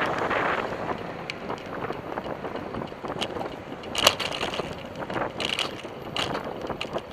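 Bicycle riding on a city road: wind rushing over the bike-mounted camera's microphone, with sharp rattling clicks from the bike and mount over bumps, the loudest about four seconds in.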